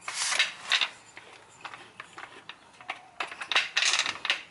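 Steel floor jack rolled across a concrete floor and positioned under the car. There is a scraping, rolling stretch at the start, then a run of metallic clicks and clatter near the end.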